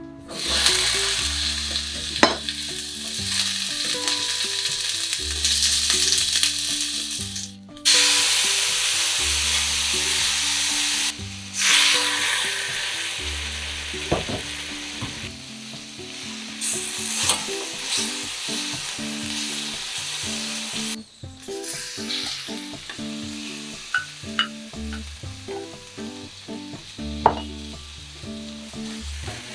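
Chunks of green pepper sizzling in hot oil in a frying pan as they are stir-fried. The sizzle starts loud as they hit the pan and dips briefly a few times, with a few sharp taps against the pan.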